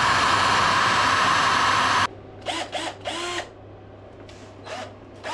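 A handheld power tool runs steadily at full speed with a high whine, then cuts off abruptly about two seconds in; brief voices follow.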